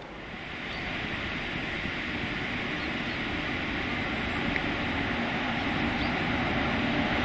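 Locomotive approaching on the track, its steady running drone growing louder.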